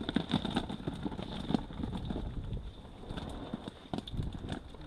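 A fishing keepnet being hauled out of the water and handled: a run of irregular knocks, clatters and rustles.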